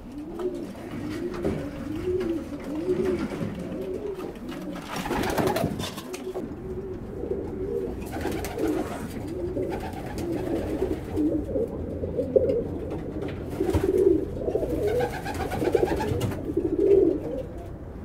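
Tippler pigeons cooing over and over, a run of low rising-and-falling coos from several birds, with a short rustling noise about five seconds in.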